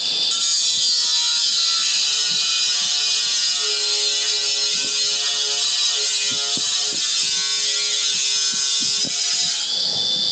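Electric angle grinder fitted with a cutting wheel, running and cutting into a switch panel: a steady, loud, high-pitched hiss and whine.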